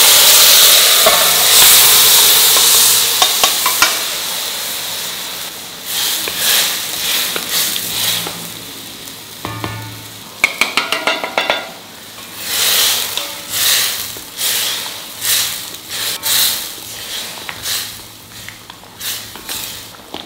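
Mutton pieces sizzling in a pan, loud at first and dying down over the first few seconds. Then they are stirred with a spatula, giving repeated scraping swishes and a quick run of clicks against the pan about ten seconds in.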